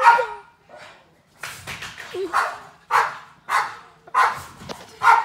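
An agitated dog barking over and over, about eight short barks, with a brief falling whine twice in between.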